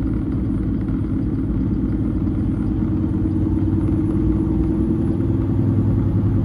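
Semi truck's diesel engine running steadily, heard from inside the cab as an even low drone.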